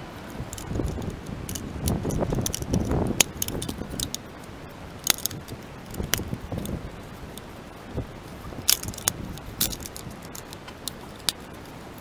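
Hard plastic dust-case parts of a SANYO SC-X12J vacuum cleaner being handled and set down on newspaper: scattered sharp clicks and light clatter, with rustling handling noise over the first few seconds.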